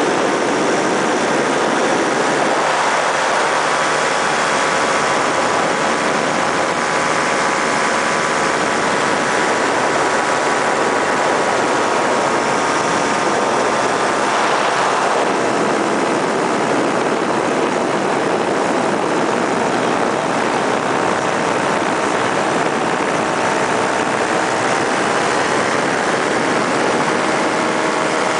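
Paramotor's two-stroke engine and propeller running steadily in flight, a constant loud drone whose pitch shifts slightly now and then.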